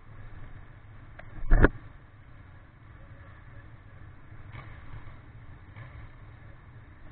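Ducati 959 Panigale's L-twin engine idling as a low, steady rumble, with one sharp thump about a second and a half in.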